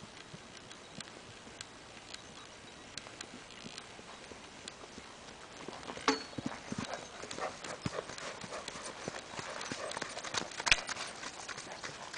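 Hoofbeats of a ridden horse on dirt and dry grass, faint at first, then louder and closer together about halfway through, with a few sharper knocks.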